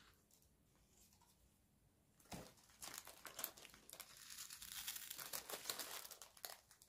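Small plastic bag crinkling as tiny resin diamond-painting drills are poured out of it into a plastic tray, a dense crackling rattle starting about two seconds in and lasting about four seconds.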